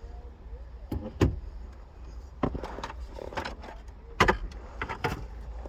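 Irregular sharp plastic clicks and knocks from hands working at the clip tabs of a 2006 Volvo S40's gear-shifter trim.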